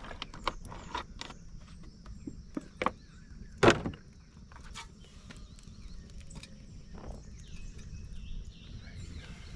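Outdoor ambience: a steady low rumble and a high steady hiss, with scattered small knocks and clicks and one louder sharp knock about three and a half seconds in. Bird chirps come in near the end.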